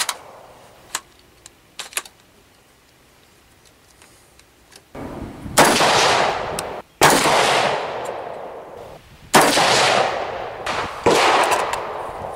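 AR-15-style rifle firing from a bench rest: four loud shots one and a half to two and a half seconds apart, each with a long echoing decay, with a fainter shot just before them. A few light clicks of handling come before the shooting.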